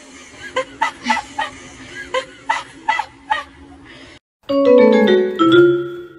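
A dog giving a quick run of about ten short, sharp, honking barks. After a sudden cut, music with marimba-like mallet notes comes in, louder than the barks.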